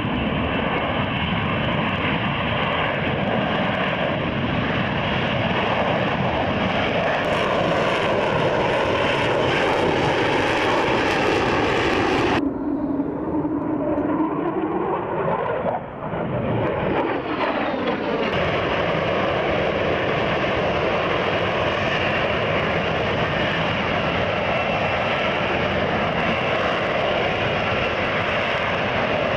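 Lockheed Martin F-35B's jet engine and lift fan roaring steadily in a STOVL hover, with a whine running through the roar. About twelve seconds in, the sound cuts abruptly to a duller stretch in which a tone swoops down and back up, then the full roar returns a few seconds later.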